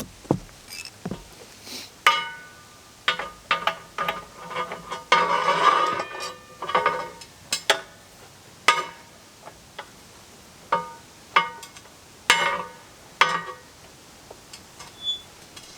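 Irregular metallic clinks and knocks, each with a short ring, from tools and metal parts being handled on a homemade grain grinder built from table saw parts. A longer scraping rattle comes about five seconds in.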